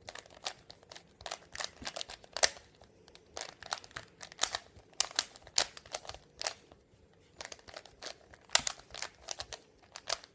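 Plastic Rubik's Cube layers being turned rapidly by hand, a fast irregular run of sharp clicks and clacks with brief pauses between turn sequences.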